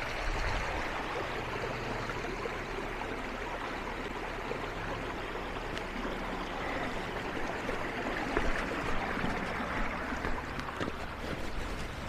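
Creek water running over rocks: a steady, even wash of flowing water.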